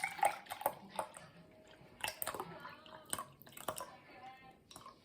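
A series of irregular light clicks and taps, like small objects being handled and set down.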